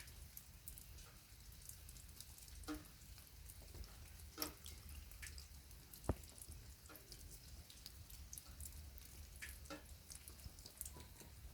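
Faint light rain heard as scattered, irregular drops and drips, with one sharper tick about six seconds in that is the loudest sound. A low steady rumble runs underneath.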